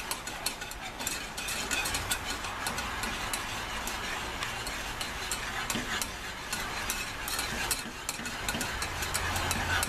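Wire whisk stirring a thick, honey-sweetened ham glaze in a small nonstick saucepan, with a steady stream of quick light clicks as the wires hit the pan, over a low steady hum. The glaze is kept moving as it heats toward the boil so it doesn't burn.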